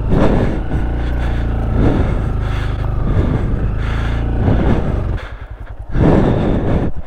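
Honda Grom's small single-cylinder engine running at low revs, with a few brief scuffing noises over it; the engine sound drops about five seconds in, then comes back up.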